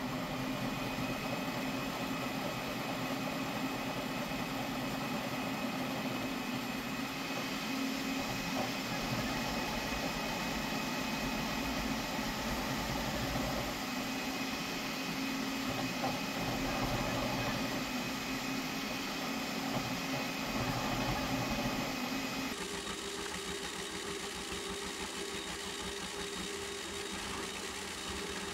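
Flashforge Adventurer 5M Pro CoreXY 3D printer running a high-speed print: a steady mechanical whir with a few steady tones. The tones shift abruptly about three-quarters of the way through.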